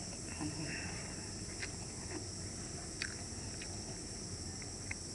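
Eating a cup of hot noodle soup: a spoon worked in the cup and broth sipped from the rim, with a few sharp little clicks, over a steady high hiss.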